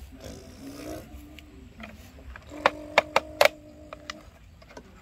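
Electric motor of a Huina remote-control toy excavator whirring at a steady pitch for about a second and a half past the middle, with several sharp plastic clicks from its mechanism while it runs.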